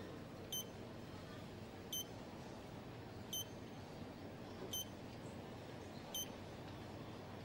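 Bedside patient monitor beeping: five short, high beeps evenly spaced about every second and a half, over faint room hiss.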